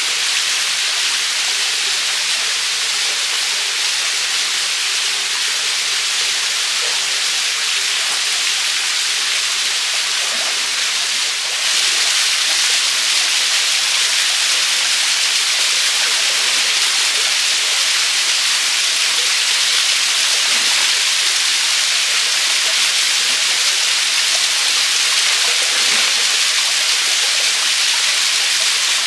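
Small waterfall pouring into a rock pool: a steady rushing hiss of falling water, a little louder from about a third of the way in.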